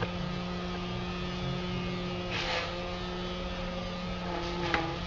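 Steady electrical mains hum, with faint rustling from hands handling the wiring inside a towing-mirror housing about halfway through and a short click near the end.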